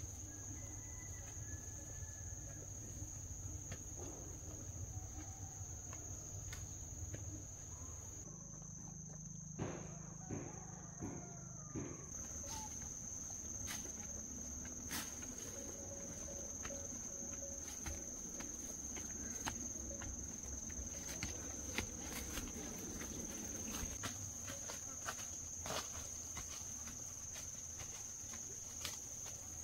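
Insects, crickets or cicadas, trilling as one steady high-pitched buzz, with scattered light knocks and rustles over it.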